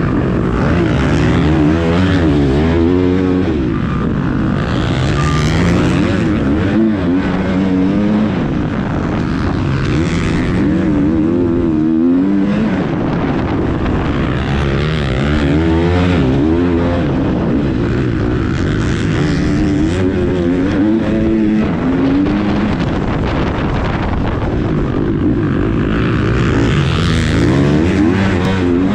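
Onboard sound of a KTM motocross bike's engine being raced hard, the pitch climbing as it revs out and dropping back at each gear change or throttle cut, over and over.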